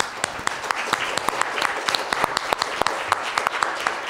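A congregation applauding, many hands clapping together in a steady patter.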